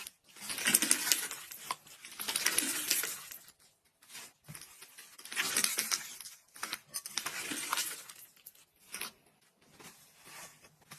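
Crispy iceberg slime crackling and crunching as it is handled, in about four bursts of a second or so with short pauses between, fading to lighter crackles near the end.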